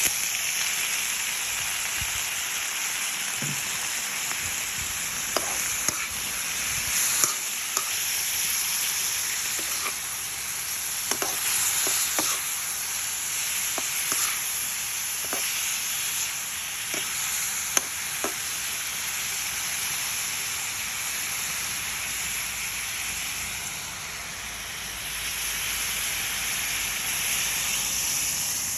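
Pork frying and sizzling in a hot pan as it is stirred, with a utensil clicking against the pan now and then.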